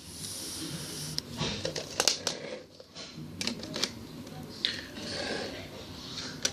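Sharp plastic clicks and snaps from a Lego blowback rifle's mechanism being handled and worked, coming irregularly with a quick cluster about two seconds in.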